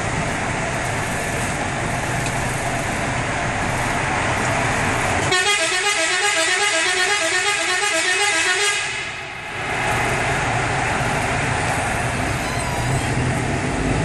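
Otokar Sultan midibus's air horn sounding for about three and a half seconds from about five seconds in, a patterned run of notes that warbles up and down about twice a second, then stopping. Around it, the midibus runs steadily, heard from inside the cabin.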